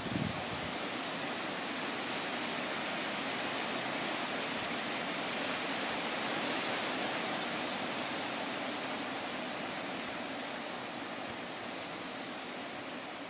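A steady, even rushing hiss of outdoor background noise, easing off slightly toward the end.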